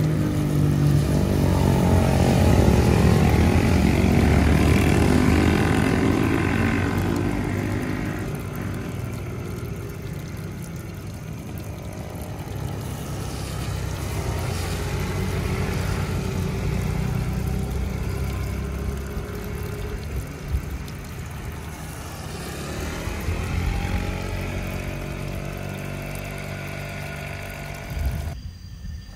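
A group of motorcycles and scooters riding past one after another, engine notes swelling as each passes and fading away. The loudest pass comes in the first few seconds, with further passes swelling around the middle and again later.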